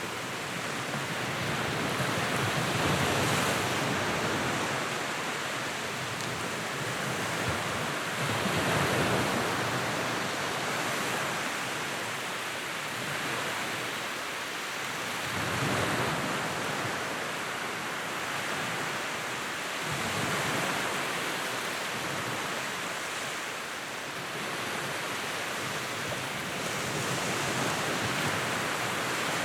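Wood fire burning in a fireplace: a steady hiss with crackling that swells and eases every few seconds.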